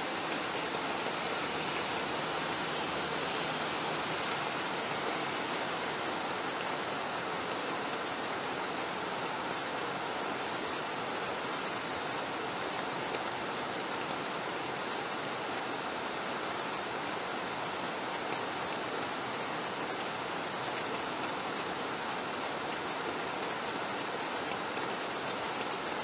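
Steady rainfall: an even, unbroken hiss of rain with no separate drops, thunder or other events standing out.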